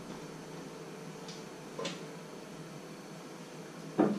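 Light knocks of objects being handled on a wooden worktable: a small click just under two seconds in and a sharper, louder knock near the end, over a faint steady room hum.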